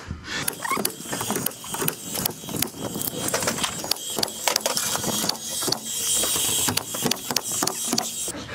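Paslode gas-powered cordless nailer firing nails into sheathing board: a rapid, irregular series of sharp shots, several a second at times.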